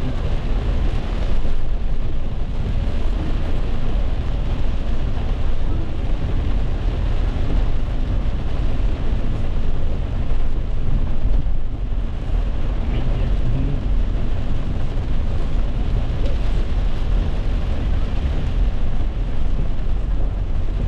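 Steady noise inside a car driving through heavy rain: rain on the roof and windshield, and tyres on the wet road, with a strong low rumble.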